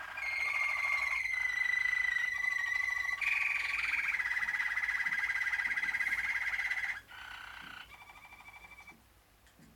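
Malinois (Waterslager) song canaries singing: long rolling trills at a steady pitch, each held for a second or more before the song moves on to the next roll. The song is loud for about seven seconds, then goes on more quietly and fades near the end.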